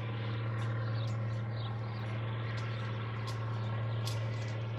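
A steady low machine hum, like a motor or engine running, with a couple of faint taps near the end.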